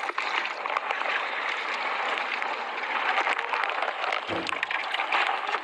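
Water sloshing and splashing around a pile of freshly caught fish, a dense crackly hiss full of small clicks and drips, with a low thud about four seconds in.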